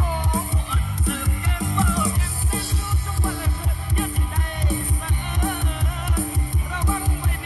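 Music with a fast, steady, heavy bass beat and a bending melody line above it, played through an AIWA MI-X180 Retro Heritage Bluetooth speaker and picked up by a phone's built-in microphone.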